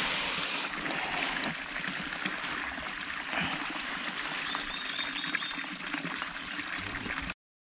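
Water splashing and trickling into a pond from an inlet pipe, a steady running sound that cuts off suddenly near the end.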